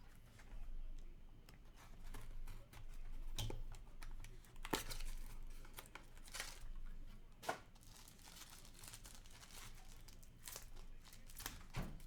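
Hockey card packs being torn open by hand: short rips and crinkling of the pack wrappers, with scattered rustles as the cards are handled.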